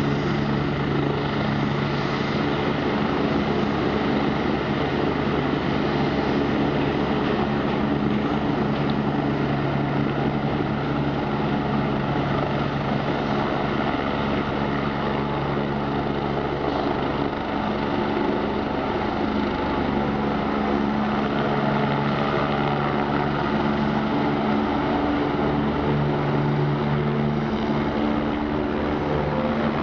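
AgustaWestland AW109 helicopter running steadily, its twin turbine engines giving a steady hum over a fast, even beat from the rotor.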